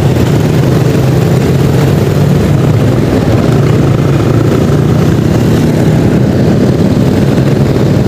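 Motorcycle engine running at a steady cruise, with steady wind and road noise.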